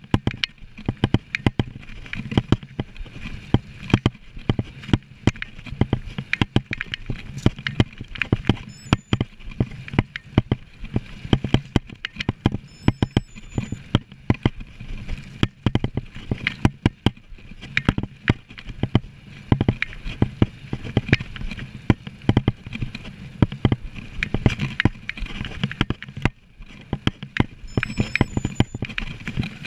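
Mountain bike ridden fast over a rough dirt trail: a continuous run of irregular knocks and rattles from the bike and its tyres, with rolling and wind noise beneath.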